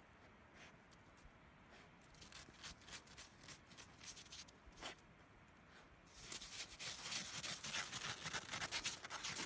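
Snow crunching and crackling as a dachshund pushes its snout into it and digs. A few faint crunches come first, then a dense, crisp crackling from about six seconds in.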